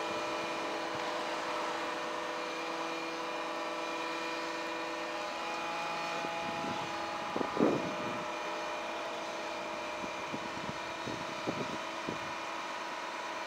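Volvo FM fire truck running to power its aerial platform while the boom moves, a steady drone with a held whine of several tones. A brief louder sound with a bending pitch cuts in a little past halfway, and a few light ticks come near the end.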